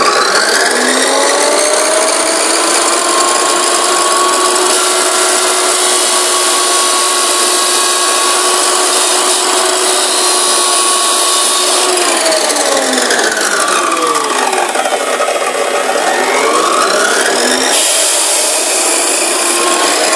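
Abrasive chop saw (metal cut-off saw) running and cutting through a steel coil spring, a continuous grinding whine. Its pitch sags from about twelve seconds in and climbs back a few seconds later.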